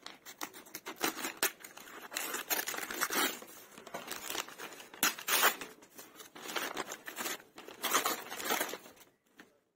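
A kraft-paper mailer being torn open and its paper crinkled and rustled by hand, in irregular rips with louder tears about 5 and 8 seconds in.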